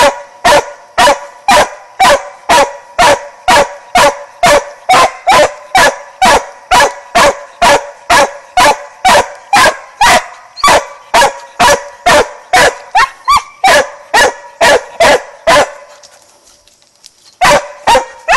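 A mountain cur barking treed at the foot of a tree, the tree bark of a squirrel dog: loud, even barks about two and a half a second. The barking stops about fifteen seconds in, then two more barks come near the end.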